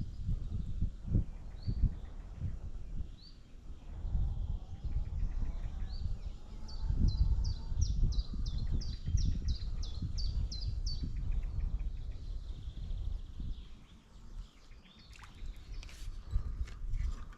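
Songbirds calling over a low, uneven rumble. There are scattered high chirps, and from about six seconds in a quick series of a dozen or so sharp, high notes. A few light clicks come near the end.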